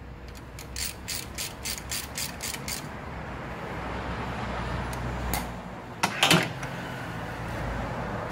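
Metal clicks and a clank as the rear axle shaft of a Kia Bongo III is slid through the rear hub. A quick run of ticks, about four a second, lasts a couple of seconds, and a louder metallic clank comes about six seconds in.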